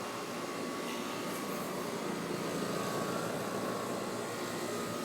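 Trane XB13 4-ton heat pump outdoor unit running steadily: an even rush of fan air over a faint steady hum from the compressor.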